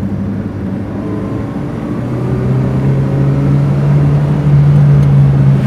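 Hyundai Atoz engine accelerating hard, heard from inside the cabin. Its pitch rises steadily and it gets louder over the last few seconds.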